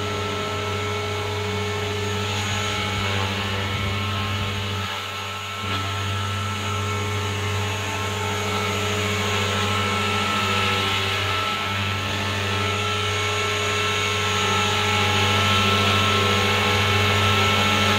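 JR Forza 450 electric RC helicopter hovering low, its main rotor whirring with a steady motor and gear whine. The sound dips briefly about five seconds in and grows a little louder near the end.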